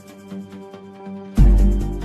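Background music with a steady beat, with a deep booming hit about one and a half seconds in.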